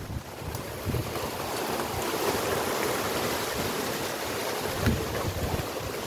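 Wind buffeting the phone's microphone: a steady rushing hiss that swells about a second in, with low rumbling gusts.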